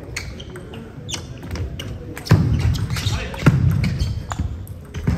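Table tennis rally: the ball clicking off bats and the table at a quick, irregular pace, echoing in a large hall, with two heavier thuds about two and three and a half seconds in.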